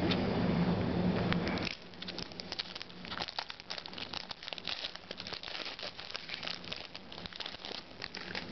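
Clear plastic baseball card pack wrapper crinkling with many small, irregular crackles as it is handled and opened. It follows a low hum in the first two seconds or so.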